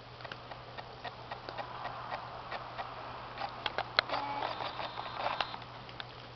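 Kittens pawing and scrabbling at a Furby toy: scattered light clicks and taps, with a short steady tone about four seconds in.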